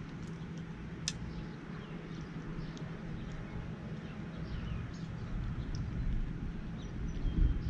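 Outdoor ambience: a steady low rumble with faint bird chirps, a single click about a second in and a few low thumps near the end.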